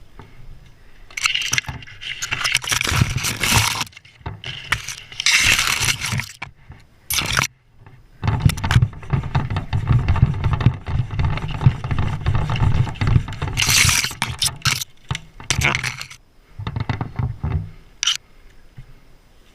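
Irregular scraping and rubbing of wood in uneven bursts with short pauses, during work on a spruce.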